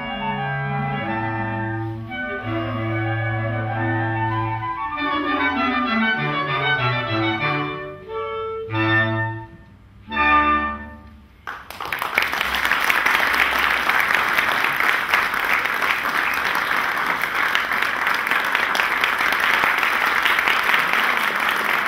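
A woodwind ensemble of clarinets, flutes and saxophones plays the closing bars of a piece: sustained chords, then a quicker run, then a few short, loud chords, the last about ten seconds in. The music stops, and about a second later audience applause starts and carries on steadily.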